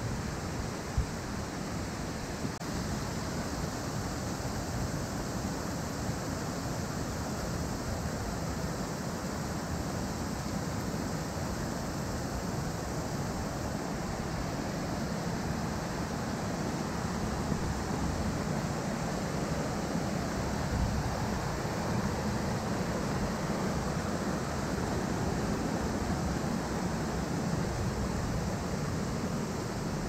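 A mountain stream rushing over rocks: a steady, unbroken wash of water noise.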